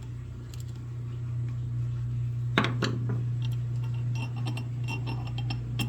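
Small steel ratchet parts and a pick clinking while a ratchet head is worked back together. A sharp click comes about two and a half seconds in, followed by a run of light metallic ticks, over a steady low hum.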